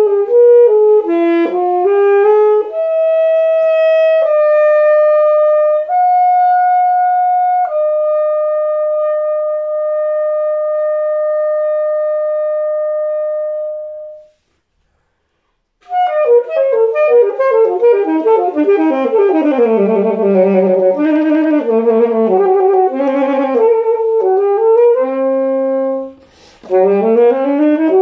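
Alto saxophone played solo: a quick rising run, a few held notes, then one long held note that fades out about halfway through. After a short pause come fast runs of notes up and down, with a brief break and another rising run near the end.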